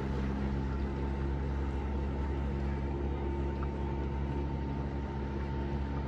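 Motorboat engine running at a steady speed, a constant low drone under a steady hiss.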